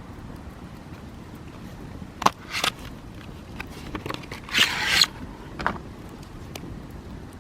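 Hinoki firewood burning in a campfire: irregular sharp crackles and pops over a steady low background, with a denser flurry of crackling about two-thirds of the way through.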